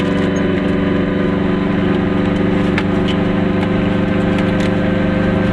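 Goggomobil's two-stroke twin-cylinder engine running at a steady cruising speed, heard from inside the small car's cabin along with road noise.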